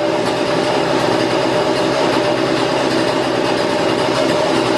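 Husqvarna 235 chainsaw's two-stroke engine idling steadily, its pitch holding level.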